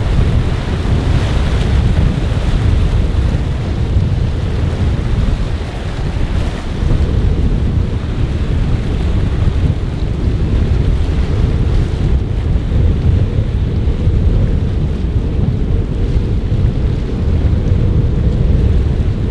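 Strong wind buffeting the microphone with a steady low rumble, over a rough sea and breaking waves.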